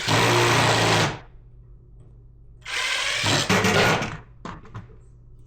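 Power drill running in two short bursts, the first about a second long at the start and the second about a second and a half long near the middle.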